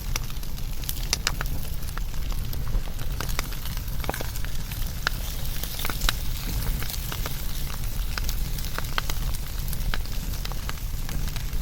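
Wood fire burning steadily, with irregular sharp crackles and pops over a low rushing rumble of flame.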